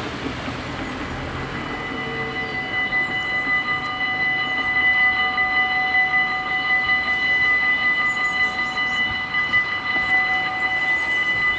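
Dutch level-crossing warning bells start ringing about two seconds in and keep up a rapid, steady, high ringing, getting louder by about five seconds in: the signal that a train is approaching and the half-barriers are coming down. Road-traffic noise is heard before the bells start.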